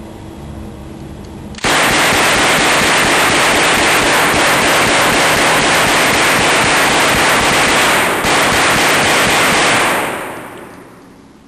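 Rapid gunfire from a pistol-calibre submachine gun, the shots running together into one continuous loud noise. It starts abruptly a second and a half in, breaks briefly near eight seconds, and dies away near the end.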